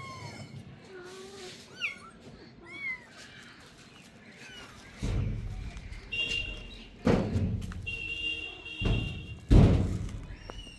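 Kittens mewing in short high rising-and-falling cries during the first few seconds, then several heavy thumps about five, seven and nine and a half seconds in, the last the loudest.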